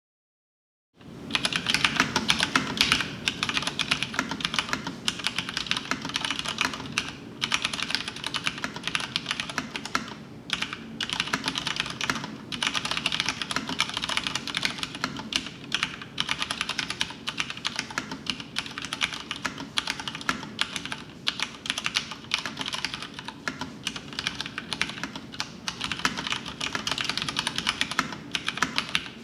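Typing on a Filco Majestouch 2 mechanical keyboard with Cherry MX Brown switches and PBT keycaps: a fast, continuous run of key clicks that starts about a second in, broken by a couple of short pauses.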